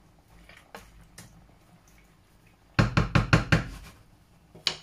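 Wooden spatula knocking against the rim of a non-stick frying pan of chicken pieces: a few light clicks, then a quick run of about seven knocks lasting about a second, and one more knock near the end.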